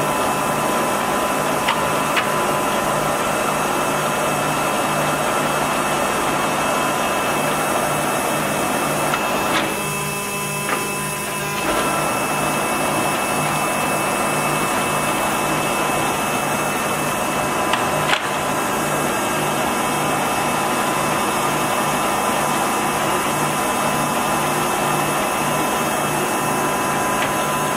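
Timemaster gap bed engine lathe running under power, its spindle and gearing giving a steady mechanical whir with a regular low throb. The sound changes briefly about ten seconds in, and there is a sharp click a little later.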